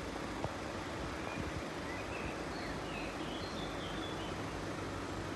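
Steady outdoor background hiss with a few faint bird chirps about two to three seconds in, and a single light click near the start.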